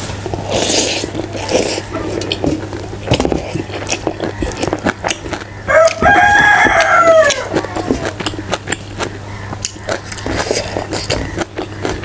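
A rooster crows once, a call of about two seconds, rising and then falling, around the middle. Close-up chewing and smacking of someone eating by hand goes on throughout.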